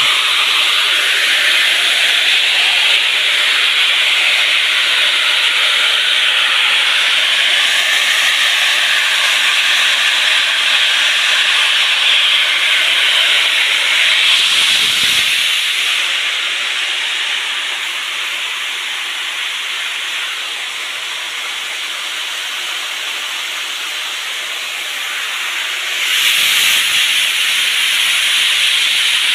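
Soybeans sliding down the sheet-metal chutes of a spiral seed separator as they are graded, a steady hissing rush of grain on metal. It eases off somewhat in the middle and comes back up near the end.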